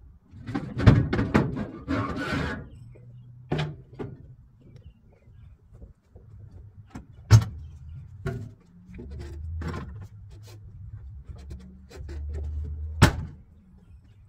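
Metal knocks, clanks and a scrape as a man clambers over an old steel pickup on a trailer, with a sharp metallic slam near the end as the truck's cab door is shut. A low steady rumble runs underneath.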